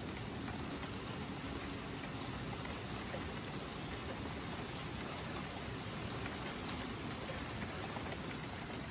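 Rain falling steadily: an even hiss that holds at the same level throughout.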